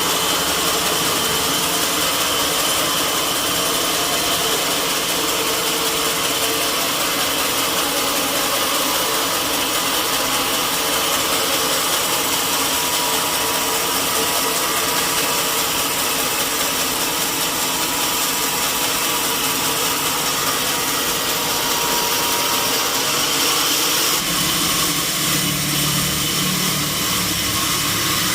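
Sawmill machinery running steadily, a saw working mahogany timber. About 24 seconds in, the sound shifts, with a deeper part coming in.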